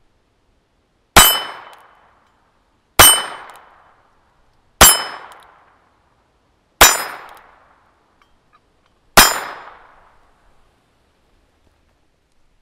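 Five .22 Short shots from a North American Arms NAA-22S mini revolver, about two seconds apart, each with a short ring from the hanging steel plate target as it is hit.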